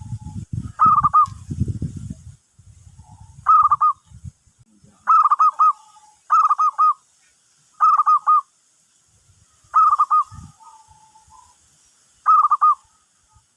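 Zebra dove (perkutut) cooing: seven short calls, each a quick run of staccato notes, with softer single coo notes between them. Low rumbling noise in the first two seconds.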